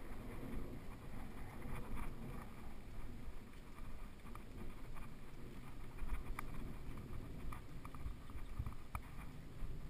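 Mountain bike rolling along a gravel track: a steady low rumble of the tyres on the loose surface, with frequent small rattles and clicks from the bike.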